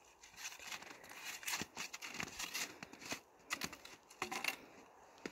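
Irregular crunching and scraping of cross-country skis, poles and boots on packed snow, with clothing rustling, as a fallen skier is helped back to her feet.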